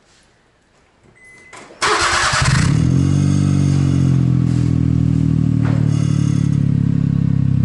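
Daihatsu Atrai's three-cylinder kei engine starting through a loud aftermarket muffler: a brief burst of starter cranking about two seconds in, then the engine catches and settles into a steady idle. The sound echoes in the enclosed paint booth.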